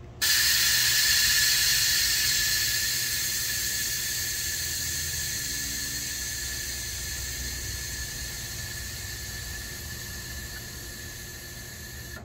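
Firestone rear air bags being deflated through an Air Lift wireless air-management valve. Air hisses out with a thin steady whistle, starting abruptly and slowly fading as the bag pressure falls from about 35 to 5 psi and the rear of the truck lowers.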